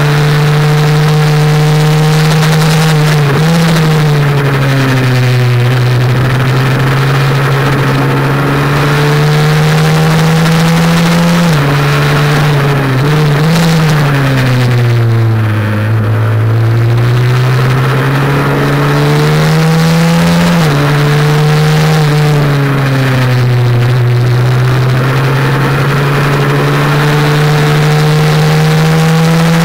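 A Honda NSF100's single-cylinder four-stroke engine runs hard under the rider. Its pitch climbs, then drops suddenly at each upshift, at the start and twice more about two-thirds of the way through. Around the middle the revs fall away deeply as the bike slows for a corner, then climb again.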